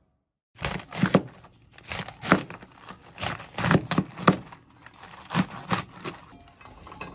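Kitchen knife chopping napa cabbage on a cutting board: about a dozen irregular cuts, roughly two a second, starting about half a second in.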